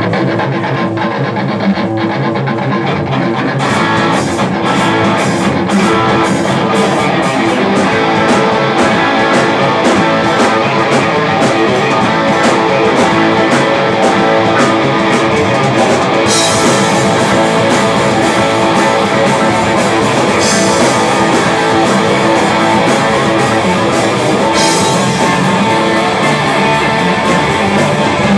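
Live rock band playing a hard-edged song on electric guitars, bass and drums. A steady drum beat comes in about four seconds in, and bright cymbal wash joins from about sixteen seconds.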